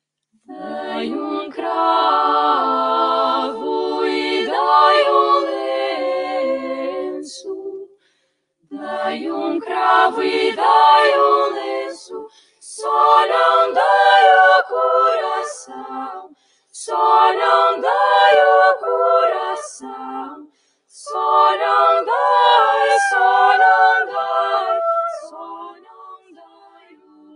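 Female vocal ensemble singing a cappella in several parts, in five phrases broken by short pauses; the last phrase trails off near the end.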